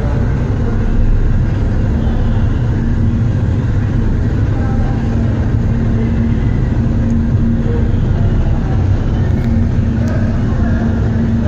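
A small passenger ferry's engines running under way, with a steady low rumble and a steady hum that comes and goes.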